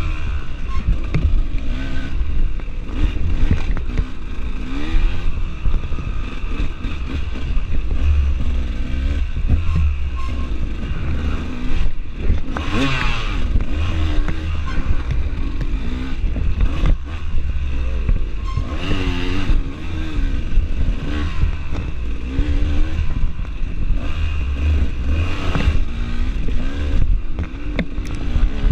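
Dirt bike engine revving up and falling back over and over as it is ridden through a tight trail, the pitch climbing sharply several times. Knocks and rattles from the bike over rough ground, with a heavy low rumble on the microphone.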